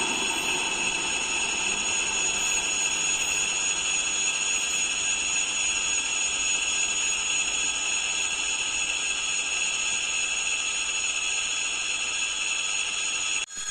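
Electric train on the line with a steady high-pitched whine of several tones over rumbling noise, cut off abruptly near the end.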